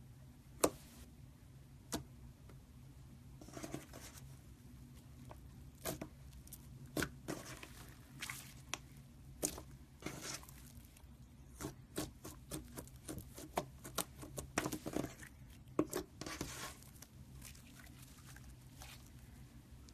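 Hands poking, squishing and stretching glossy slime, giving irregular sharp sticky pops and clicks, thickest in the middle, over a faint low hum.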